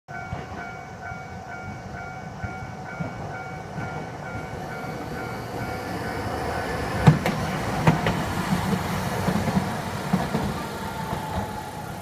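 Japanese level-crossing warning bell ringing with a repeating electronic tone. A Toei Arakawa Line 9000-series tram then rumbles past, its wheels giving two sharp clacks about a second apart past the middle.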